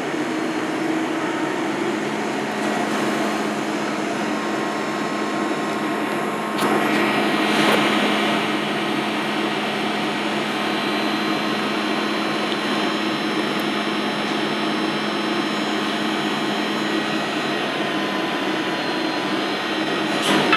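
Small fan motor of a Breville PolyScience handheld smoking gun running with a steady whir, blowing smoke through its hose into a cling-film-covered tray. It grows louder for a second or so about seven seconds in.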